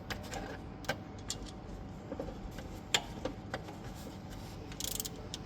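Scattered metallic clicks from a 10mm socket and ratchet working the nut on the starter motor's cable terminal, with a short run of ratchet clicking near the end.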